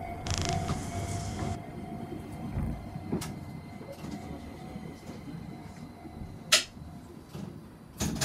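Chikuho Electric Railway train heard from inside the car, slowing to a stop: the low rumble of the running gear fades away. A brief hiss comes about half a second in, and single sharp clicks come about three seconds and six and a half seconds in.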